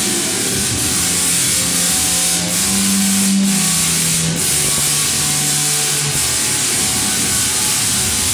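A large Tesla coil discharging, its arc to the performer giving a loud, steady crackling hiss. A few low held notes shift in pitch underneath.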